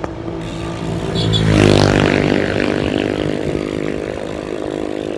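A motor vehicle engine accelerating. Its pitch rises about a second in and then holds, loudest near two seconds in before it slowly fades, over a low rumble.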